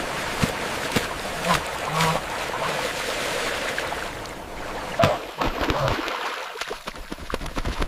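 Water splashing and sloshing with many small clicks and splats, and a few short animal calls about one and a half, two and five seconds in.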